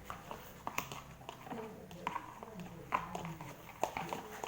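Sticky homemade slime being stirred and pressed with a spatula in a bowl, giving irregular wet clicks and small pops.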